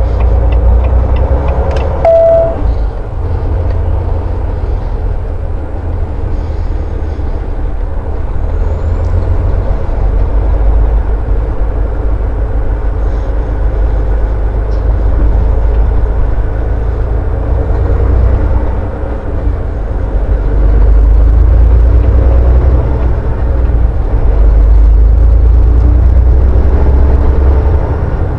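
Heavy truck's diesel engine and road noise heard inside the cab while driving: a steady low rumble that grows louder about twenty seconds in. A short single beep sounds about two seconds in.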